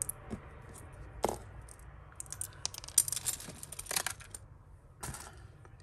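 Small beads and pieces of costume jewellery clicking and clinking as they are handled and dropped. A quick run of clicks comes about three seconds in.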